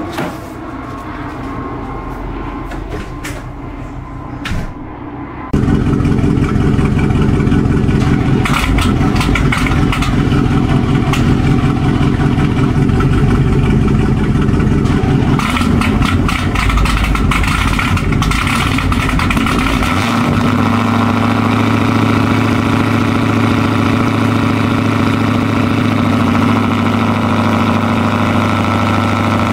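Dodge Hellcat's supercharged V8 starting up loudly about five seconds in. It runs rough and uneven at first, then settles into a steadier idle for the last third.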